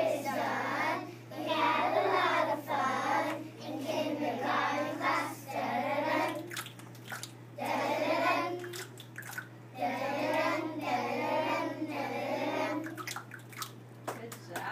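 A group of young children singing a song together in phrases with short breaths between them, over a steady low hum. A few sharp clicks fall in the later pauses.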